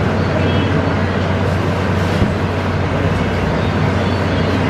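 Steady, loud roar and low hum of the burners under a street stall's flat griddle stoves baking guokui flatbreads, with a light knock about two seconds in.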